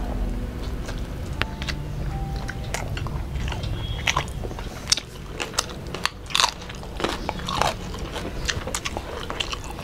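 Close-miked eating by hand: chewing of rice, fried fish and green chillies, with a run of sharp crisp bites and mouth clicks, thickest from about four to eight seconds in.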